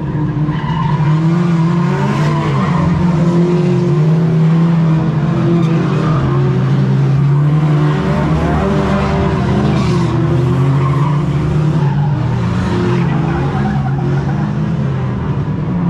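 Banger race car's engine running loud, heard from inside its stripped-out cabin, with its note wavering up and down.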